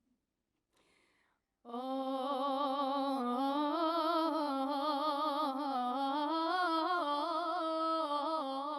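A woman's voice, coming in about two seconds in, singing a long wordless melody with vibrato and quavering ornaments: the opening of a Palestinian song.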